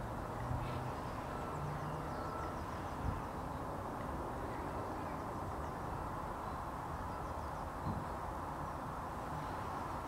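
Steady outdoor background noise with faint, distant bird calls now and then.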